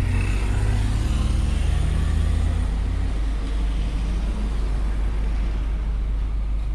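A pickup's car-audio rig of sixteen subwoofers playing a deep, steady bass with no vocals over it; a slightly higher bass note stops about three seconds in.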